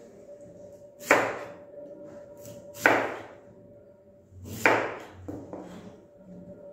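Kitchen knife chopping through a peeled vegetable onto a plastic cutting board: three sharp chops about two seconds apart, each dying away quickly.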